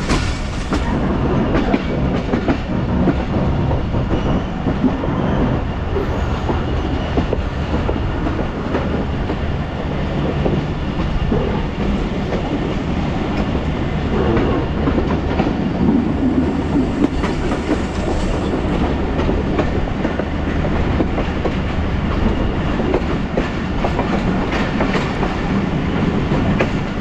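Passenger train coaches running along the track at speed: a steady rolling rumble with the steel wheels clattering on the rails.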